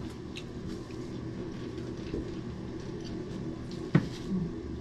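Faint eating and handling noises at a meal table, with a few light clicks over a steady low hum, and one sharp knock about four seconds in.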